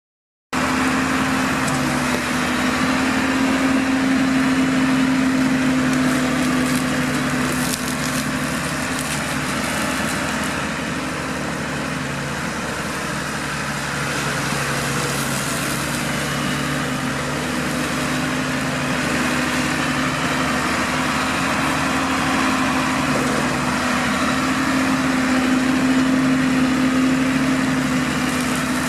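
New Holland TM140 tractor's diesel engine running steadily under load, driving a Shelbourne hedge trimmer, with a constant hum and a steady whirring rush from the cutting head.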